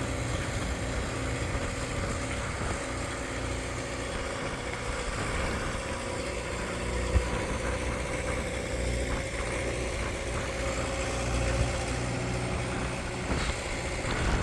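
Engine of a construction machine idling steadily, with a single sharp knock about seven seconds in.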